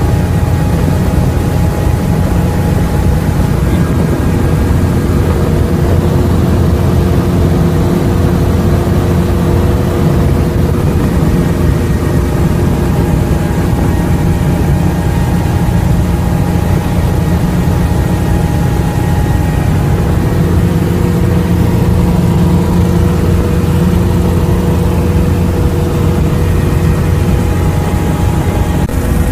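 Light helicopter in flight, heard from inside the cabin: a loud, steady low drone of engine and rotor with faint steady whining tones above it.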